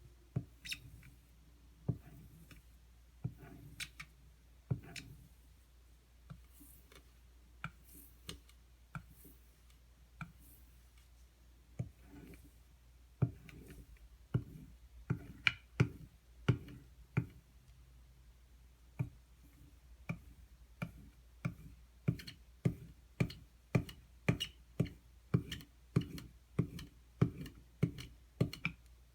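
Knife blade being stropped on a strop loaded with white compound to polish the bevel, each stroke giving a sharp tick. The ticks come irregularly at first, then settle into a steady rhythm of about two a second for the last third.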